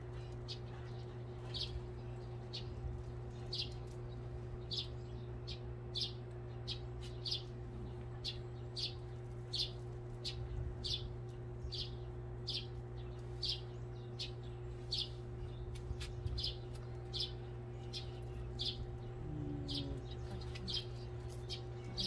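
A small bird chirping one short high note over and over, about one and a half chirps a second, over a steady low hum.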